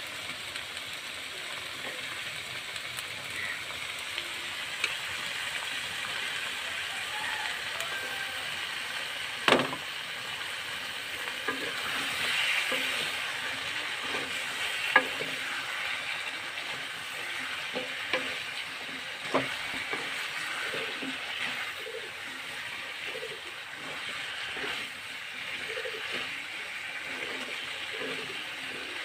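Cauliflower florets sizzling as they fry in curry paste in a wok, with a wooden spatula stirring and scraping them against the pan in regular strokes. A few sharp knocks stand out, the loudest about ten seconds in.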